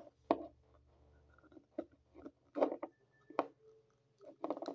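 Small plastic toys being handled on a tabletop: a handful of short taps and rustles, a few per second at most, with brief pauses between them.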